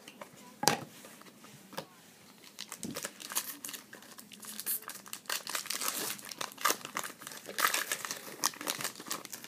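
Foil trading-card pack wrapper being torn open and crinkled by hand, in a dense run of crackles from about three seconds in. A single sharp tap comes less than a second in.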